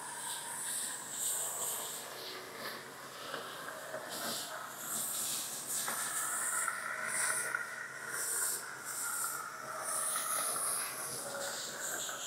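Water hissing and spattering in uneven bursts.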